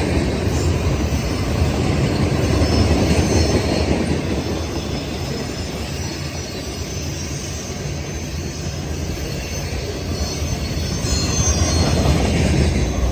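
Freight cars of a CSX mixed freight train rolling past, a steady rumble of steel wheels on rail with high wheel squeal coming and going.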